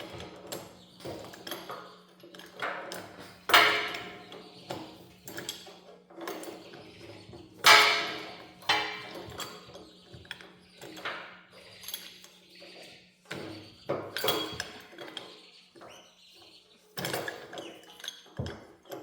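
Irregular metal clanks and taps of tools and steel parts being handled during reassembly of a log splitter's hydraulic cylinder, each with a short ringing tail. Two strikes, about 3.5 and 8 seconds in, are much louder than the rest, over a faint steady hum.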